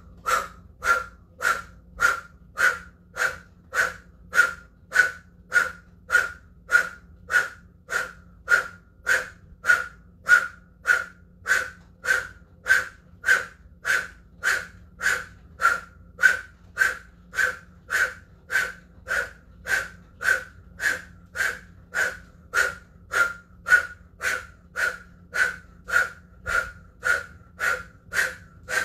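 Breath of fire through an O-shaped mouth: short, forceful breaths in an even rhythm of nearly two a second, each a sharp puff.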